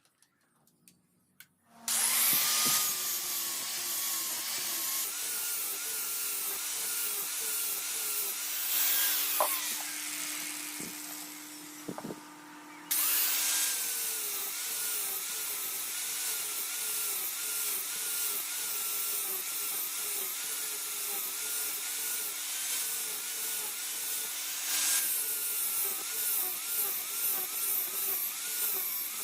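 Electric grinder working a steel blade: a steady grinding noise whose motor pitch dips and recovers with each pass of the work against it. It starts about two seconds in and eases off briefly in the middle.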